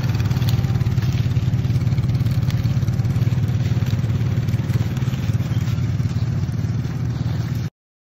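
ATV engine running steadily with a fast even pulse, with light rattling over it; it cuts off abruptly near the end.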